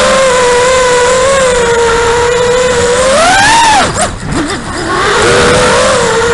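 Xnova 2204 2300kv brushless motors of a 5-inch FPV quadcopter spinning HQ 5040 tri-blade props, a steady high whine heard through the onboard action camera. The whine swells and rises in pitch about three and a half seconds in, then drops away and dips in level around four seconds in before climbing back.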